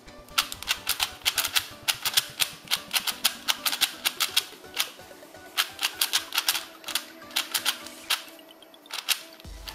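YJ Guansu 4x4 speed cube being turned by hand: quick runs of clacky plastic clicks as the layers snap round, with brief pauses about five seconds in and near the end. Background music plays underneath.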